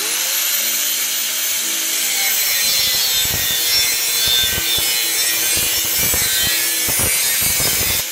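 Angle grinder with a cut-off disc cutting through a rectangular steel tube clamped in a vise: the motor spins up at the start, then a loud, steady grinding of disc on steel runs on through the cut.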